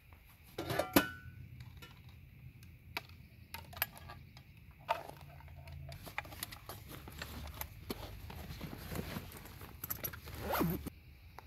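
Fabric backpack being packed: rustling and clinking as things are pushed into its pockets, with a sharp knock about a second in and a zipper drawn near the end.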